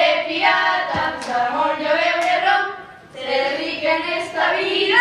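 Girls singing a song, with long held notes and a short break about three seconds in.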